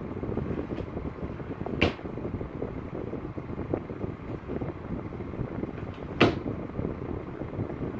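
A wooden dresser drawer being pulled open and knocked about by a small child, with a sharp knock about two seconds in and a louder one about six seconds in, over a steady low rumbling background.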